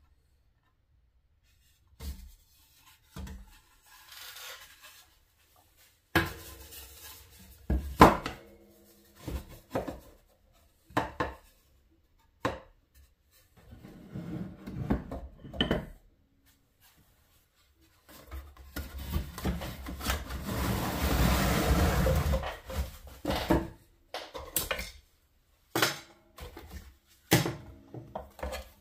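Hand work with wooden parts: scattered knocks and clatters, with a few seconds of steady scraping just past the middle.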